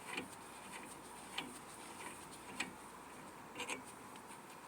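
Faint, sparse clicks from a hand tool working the 14 mm lower brake caliper bolt as it is loosened, about one click a second, with a quick double click near the end.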